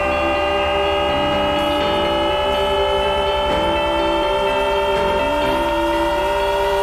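A long, sustained horn-like chord of several steady tones, creeping slightly upward in pitch, held over music with a lower line of changing notes.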